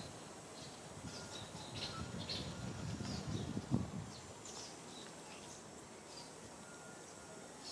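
Small birds chirping in the background: many short high chirps and a few brief whistled notes, scattered throughout. Low rumbling noise rises over the first few seconds, with a single knock near the middle.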